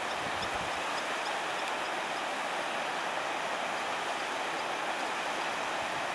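Muddy flash-flood water rushing down a desert wadi: a steady, even rushing noise.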